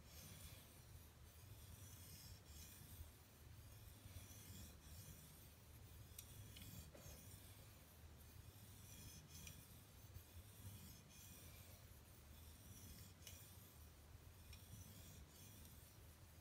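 ESEE-3 MIL knife blade being stroked across a fine-grit Japanese water stone to polish its edge: a faint scraping hiss with each pass, about one stroke a second.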